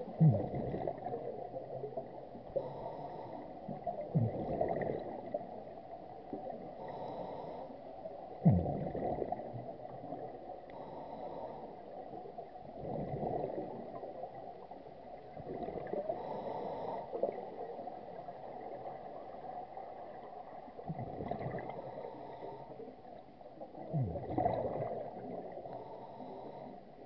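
Scuba diver breathing through a regulator underwater: a gurgling rush of exhaled bubbles about every four seconds, with fainter hissing inhalations in between, muffled as heard underwater.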